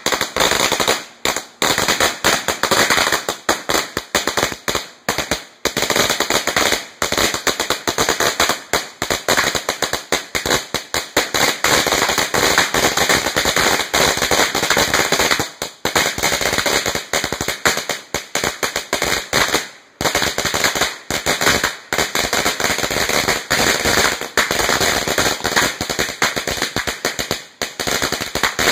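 A 1,000-count string of firecrackers going off in a rapid, continuous chain of sharp bangs, many per second, with a brief lull about two-thirds of the way through.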